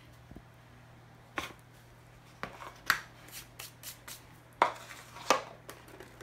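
Kitchen handling noise: a series of about eight sharp clicks and taps as salt is tipped into the bowl and the salt container is handled, the loudest about three and five seconds in, over a faint steady low hum.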